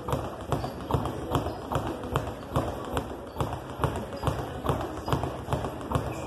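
Speed bag being hit against its wooden rebound platform in a steady, fast rhythm of several sharp hits a second.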